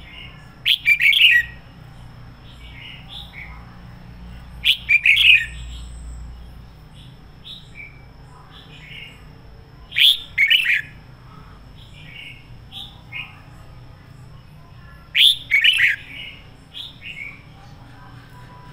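Red-whiskered bulbul singing in four loud, rapid bursts of about a second each, with softer short chirps between them.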